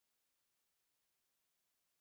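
Near silence: only a faint, even noise floor from the recording.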